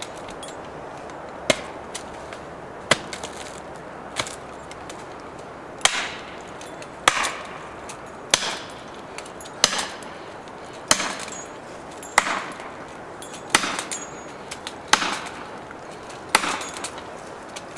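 Axe chopping into wood with steady strokes about every second and a quarter, each a sharp, woody chop.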